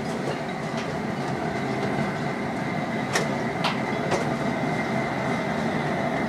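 Steady rumble of a propane burner running under a large gumbo pot, with a faint constant hum. Two light ticks come about three seconds in.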